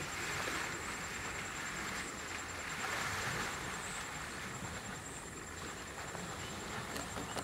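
Asian elephant wading through shallow water, its legs splashing with each stride, the splashing swelling near the start and again about three seconds in.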